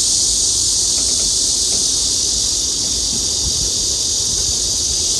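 Loud, steady chorus of cicadas buzzing in the summer trees, an even high-pitched hiss with no break.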